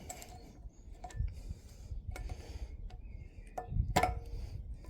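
Irregular clicks and knocks of hand tools working on metal parts, with the loudest knock near the end.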